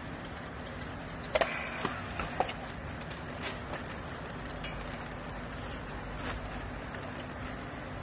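Handling of a handheld battery strapping tool and plastic strap: a short rattle and a few sharp clicks about a second and a half in, then scattered lighter clicks, over a low steady machine hum.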